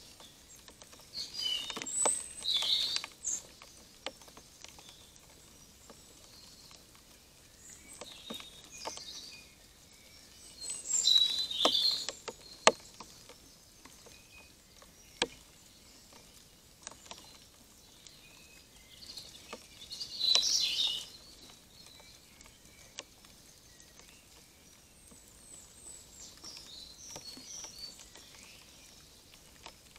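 Raindrops dripping onto the trail camera in sharp, scattered clicks, with several short bursts of high-pitched songbird song, the loudest a little past a third of the way in and again about two-thirds through.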